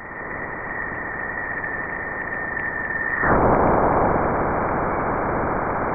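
Sonified radio-wave data from NASA's Juno Waves instrument at Jupiter: a steady high tone from plasma oscillations in the solar wind upstream of Jupiter rides over hiss, then about three seconds in the tone stops and a louder, rougher noise takes over as the spacecraft crosses Jupiter's bow shock.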